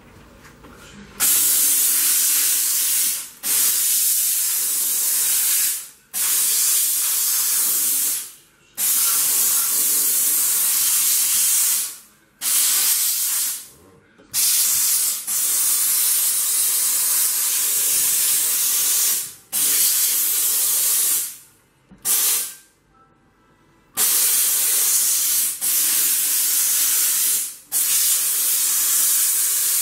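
Sauber Brilliance steam cleaner jetting steam: a loud hiss in long bursts, starting about a second in and broken off briefly about nine times.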